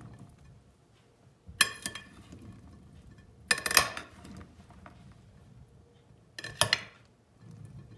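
Metal spoon clinking against a glass bowl while stirring oiled black olives: three sharp, ringing clinks about two seconds apart, with faint shuffling of the olives between.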